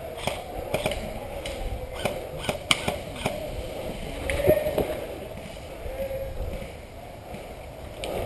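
Scattered sharp clicks and knocks, with faint distant voices.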